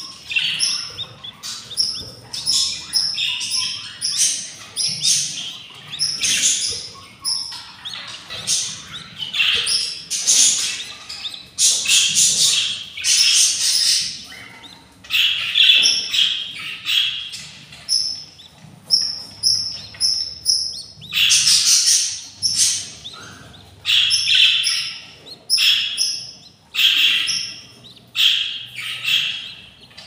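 Budgerigars chirping continuously, a steady run of short high calls about one a second.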